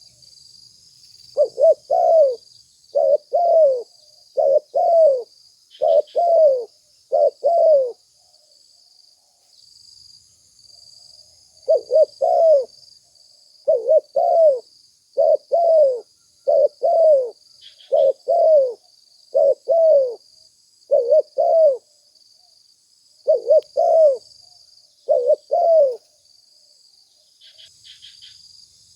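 Spotted dove cooing: a long series of low, paired coo notes in two bouts with a pause of about four seconds between them, over a faint steady high-pitched buzz.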